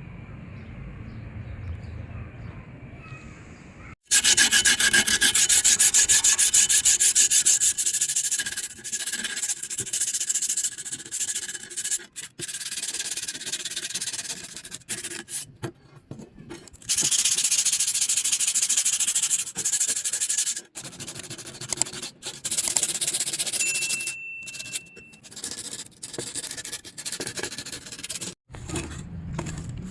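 Abrasive sanding of the rusty steel blade of a butcher's cleaver, stripping the rust. It starts suddenly about four seconds in as a loud, hissing, grating noise, then stops and restarts several times.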